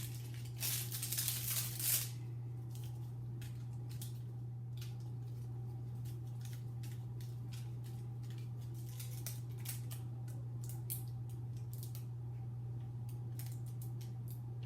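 Scissors snipping and plastic packaging rustling as a sealed package of mochi squishy toys is cut open: a burst of crinkling near the start, then scattered short clicks and snips, over a steady low electrical hum.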